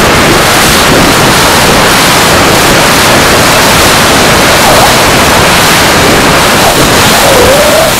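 Loud, steady rush of airflow and engine noise picked up by a camera mounted on a radio-controlled model jet in flight.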